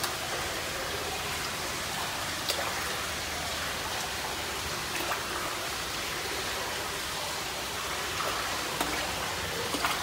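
Water trickling and splashing steadily into a koi pond, with a few faint drips.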